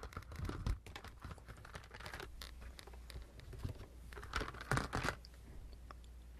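Plastic packaging crinkling close to a microphone: a clear plastic bag and a snack pouch being handled, in scattered crackles with the loudest bursts about half a second in and again around five seconds in.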